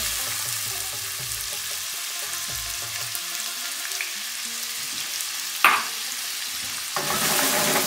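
Freshly added chopped onions sizzling in hot oil on a medium flame, a steady hiss. A single sharp tap about five and a half seconds in, and the sizzle grows louder near the end.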